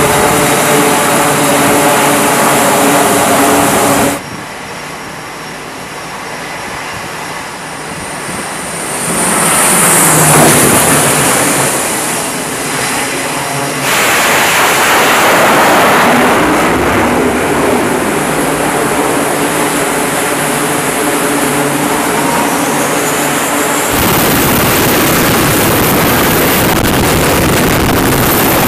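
Carrier flight-deck aircraft noise in several cuts. First, a twin-turboprop aircraft runs its engines with steady propeller tones. After a cut about four seconds in comes a quieter stretch, with a jet passing loudly and its whine sweeping in pitch. The last few seconds are a helicopter's steady rotor and turbine noise.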